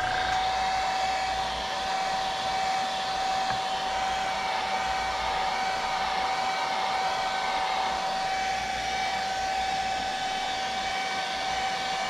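Handheld Conair hair dryer running steadily, a constant whine over the rush of air, blowing on freshly airbrushed paint to dry it.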